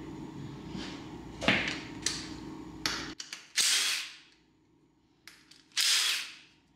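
Light metallic clicks and clinks of hand tools on a torn-down engine over a steady hum that cuts off about three seconds in, then two short loud hissing bursts about two seconds apart.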